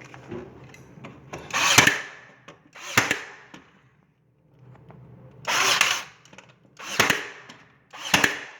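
Five loud knocks on a wooden cabinet: a hammer tapping small nails into a thin plywood panel. Two are longer, rattling strikes about 2 and 6 seconds in; three are single sharp taps, about 3, 7 and 8 seconds in.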